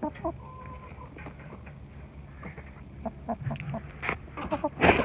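Chickens clucking softly, short low calls scattered through. Near the end, a few sharp knocks and rustles right at the microphone.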